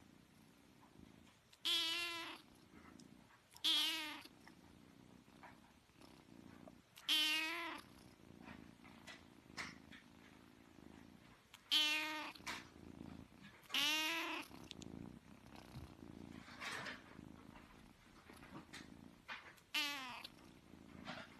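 Kitten mewing about six times, each a short high-pitched cry, over a faint steady purr.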